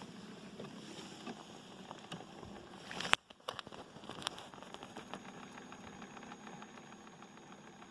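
A small motor running steadily with faint regular ticking. A sharp knock and a brief dip come about three seconds in, then the motor carries on.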